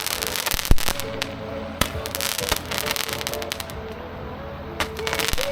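Fireworks going off: a rapid, irregular string of pops and bangs with crackling. The bangs come thickest at the start and again in a burst near the end.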